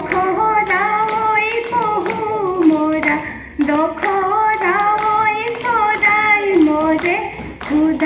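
A woman singing solo into a microphone, long held notes with wavering pitch, over sharp taps keeping a beat.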